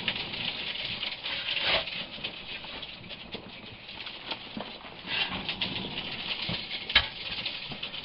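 Dirt being shovelled into a borehole: loose soil and grit falling and scraping in a continuous crackle of small clicks, with a louder rush of dirt near the start and a single sharp knock about seven seconds in.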